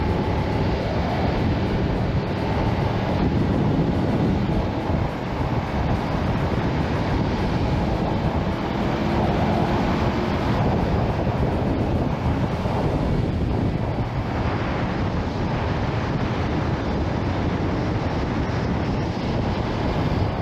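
Wind rushing over the microphone of a BMW GS motorcycle while riding, with the bike's engine running steadily underneath.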